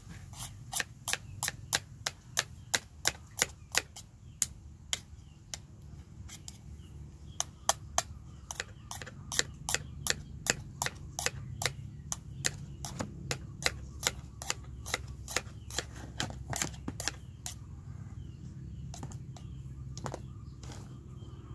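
Small knife tapping and chopping on a cutting board as a cucumber is cut, a run of sharp taps at about three a second, with a brief lull about five seconds in and sparser taps near the end.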